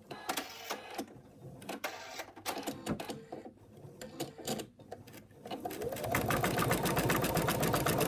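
Scattered clicks and rustling from handling the fabric in the hoop, then about five and a half seconds in a machine-embroidery machine starts stitching with rapid, even needle strokes, tacking a minky ear down onto its placement line.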